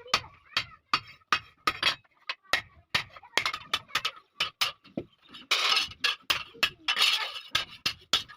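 Blacksmith's hand hammer striking iron on an anvil: an irregular run of sharp metallic clinks, about three a second, with two short scraping stretches about two thirds of the way in.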